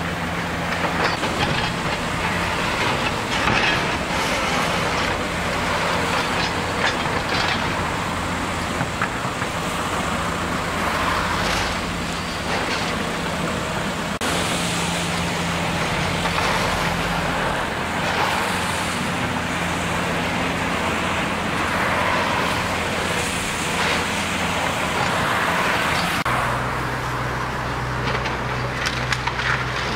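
Tracked excavator with a demolition grab pulling down a brick building: its diesel engine runs steadily under irregular cracking and crunching of breaking brick, timber and roof. The engine note changes about 26 seconds in.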